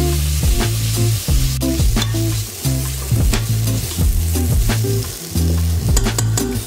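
Background music with a steady bass line, over chopped onions sizzling in oil in a stainless steel pot as a spatula stirs and scrapes the bottom.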